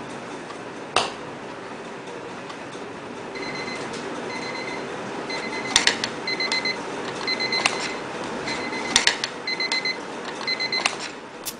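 Electronic alarm clock beeping in short bursts of rapid pips, about one burst every 0.7 s, over a steady hiss. The beeping stops near the end with a sharp click as its top button is pressed. A few other sharp clicks fall earlier.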